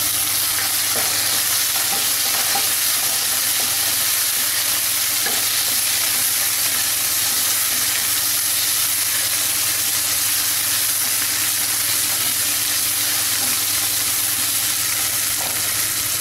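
Sliced onions, green chillies and chopped tomato sizzling in hot oil in a nonstick wok, stirred with a wooden spatula: a steady frying hiss with faint scrapes of the spatula against the pan.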